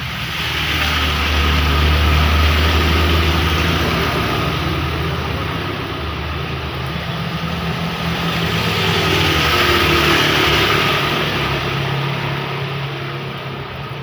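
Heavy rain hissing steadily, with a motor vehicle's engine running, its low hum swelling louder about two seconds in and again about ten seconds in as vehicles pass.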